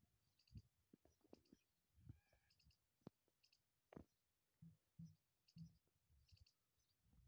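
Near silence with faint scattered clicks and soft low thumps, about one or two a second, and a few faint high ticks.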